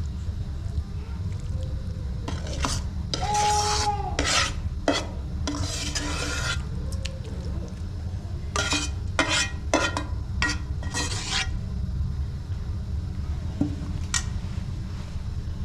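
A utensil stirring and scraping in a pot, in two runs of strokes with clinks, over a steady low rumble.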